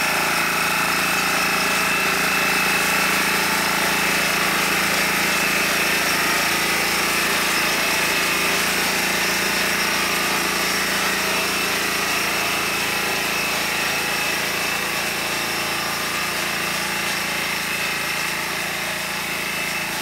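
The 5 hp Greaves Cotton diesel engine of a Kalis power weeder running steadily, easing off slightly in level toward the end.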